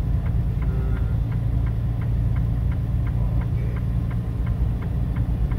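Steady low drone of a semi-truck's diesel engine and road rumble heard inside the cab while climbing a grade. A light, regular ticking about four times a second runs through it.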